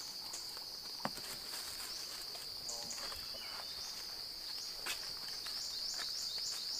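Steady high-pitched drone of forest insects, with a couple of sharp clicks in the leaf litter and a quick run of short falling chirps in the second half.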